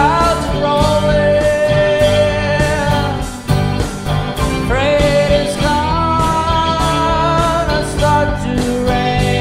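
Live band playing an instrumental break of a mid-tempo rock ballad on guitars and keyboards. A lead instrument holds long notes, with upward bends near the start and about five seconds in.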